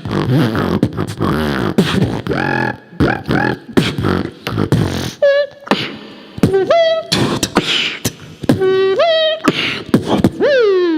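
Human beatboxing: a fast pattern of deep bass hums and sharp clicks, then from about halfway in, high pitched vocal tones that slide up and down, ending with a long falling glide.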